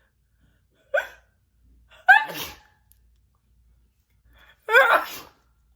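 A woman sneezing: a short vocal burst about a second in, then two loud, wet, spitting sneezes, each with a quick breath in just before it.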